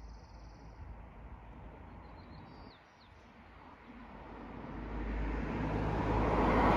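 A few faint high bird chirps in the first seconds, then a rushing noise with a low rumble that swells steadily over the last few seconds and becomes the loudest sound.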